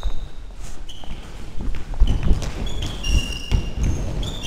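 Sports shoes squeaking on a sports-hall floor, several short high squeaks, over running footsteps and low thumps.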